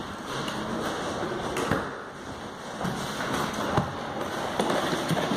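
A room shaking in a strong earthquake: a steady rushing rumble with irregular knocks and rattles from the building and loose objects, a few sharp ones standing out.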